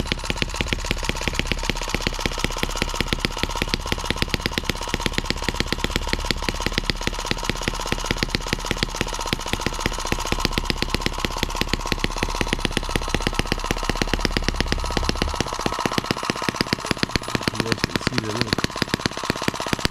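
M17B miniature single-cylinder four-stroke model engine running on its first run, firing in a fast, steady beat that is a little uneven. The engine is brand new and not yet broken in.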